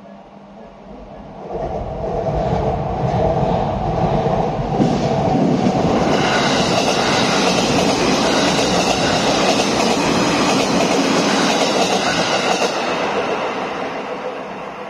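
Tokyo Metro 9000 series train passing through without stopping: its running noise and wheel-on-rail clatter over the rail joints rise about two seconds in, stay loud, and fade near the end.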